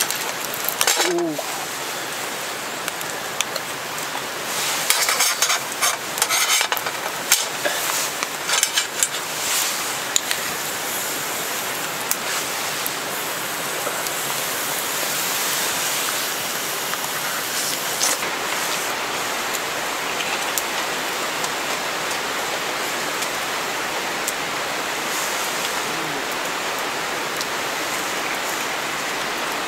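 Steady rain falling throughout. Over the first ten seconds or so, metal tongs click and knock against a wire grill rack.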